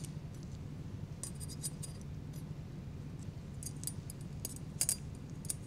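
Scattered small metallic clicks and clinks of steel surgical instruments being handled, with the sharpest pair a little before the end, over a steady low hum.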